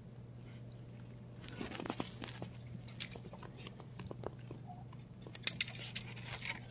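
Young raccoons scrabbling at a doorway: a scattered run of small clicks and scrapes from claws starting about a second and a half in, with a louder burst of scratching a little after five seconds, over a faint steady hum.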